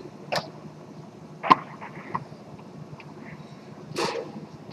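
Tornado foosball table in play: a few sharp clacks and knocks of the ball being struck by the plastic men and hitting the table. The loudest comes about a second and a half in.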